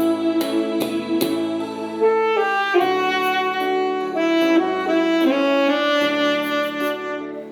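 Saxophone playing a slow melody of long held notes over a backing track with keyboard.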